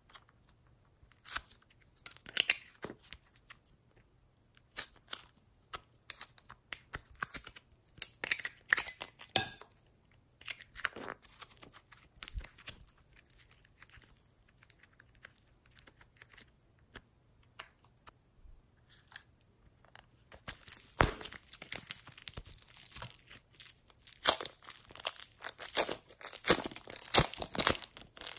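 Slime being worked by hand, giving sharp sticky clicks, pops and crackles. They come scattered at first, then turn into a dense run of crackling about two-thirds of the way through.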